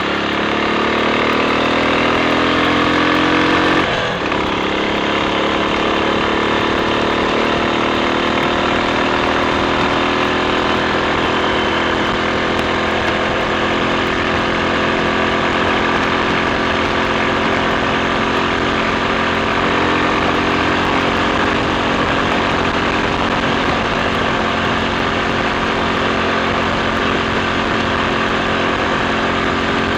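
Triumph Sports Cub's 199 cc single-cylinder engine pulling under load while ridden. It rises in pitch for about four seconds, breaks briefly at an upshift, then runs steadily at a lower, even pitch.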